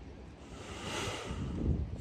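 Wind buffeting the microphone: an uneven low rumble, with a brief swell of hiss about a second in.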